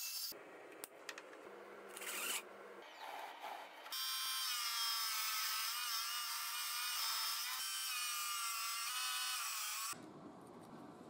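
DeWalt cordless circular saw, mounted under a table as a makeshift table saw, running and cutting wood. From about four seconds in its whine holds steady with a slight wavering in pitch as the blade works through the board, then stops abruptly near the end, leaving a faint hiss.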